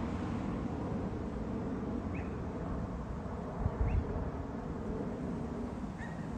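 Steady low rumble of a distant jet aircraft, with three short high chirps and a brief low thump of wind on the microphone near the middle.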